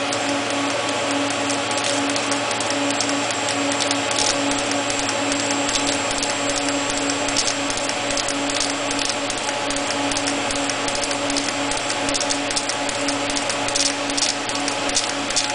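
Hot-wire TIG welding on a rotating steel pipe: the arc and welding equipment give a steady hiss and hum with a faint flickering tone and frequent light crackles.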